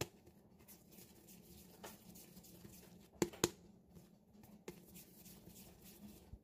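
Faint rubbing and soft taps of hands rounding portions of bread dough on a plastic sheet, with two sharper taps a little after three seconds in.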